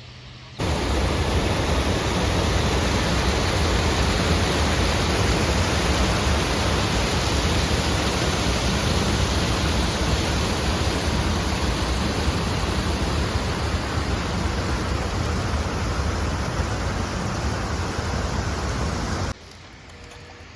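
Loud, steady rushing noise with a heavy low rumble and no tones. It cuts in abruptly about half a second in and stops just as abruptly near the end.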